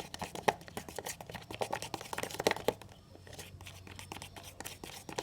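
A plastic spoon stirring thickened glue-and-water slime in a plastic cup: rapid sticky clicks and crackles. They are densest for the first three seconds, then sparser.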